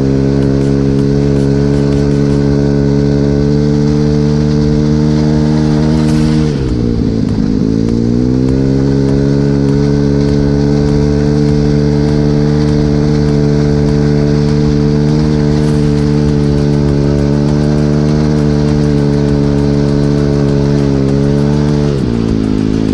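Regulmoto Seven Medalist 150E pit bike's single-cylinder four-stroke engine running at steady, high revs while riding over snow. The revs dip sharply about six seconds in and climb back, then drop again near the end.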